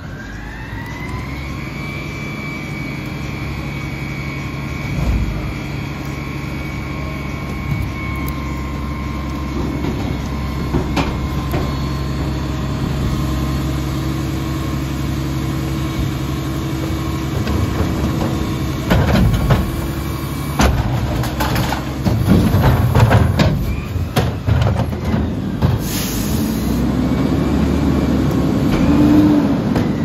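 Mack LEU garbage truck with a McNeilus Pacific front-loader body running, with a whine that rises in pitch over the first couple of seconds and then holds. From about two-thirds of the way in, a series of clanks and bangs from trash carts being emptied into the Carry Can, and a brief hiss.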